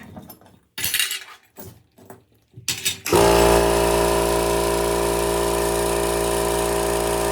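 A few short metallic clinks and clatters as tools or metal parts are handled, then about three seconds in a power tool's electric motor starts suddenly and runs at a steady speed.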